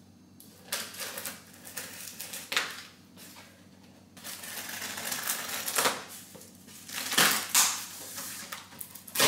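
Packing tape on a cardboard shipping box being cut with scissors and torn off, and the box flaps pulled open: irregular crackles, rips and rustles, sparse at first and busier and louder in the second half.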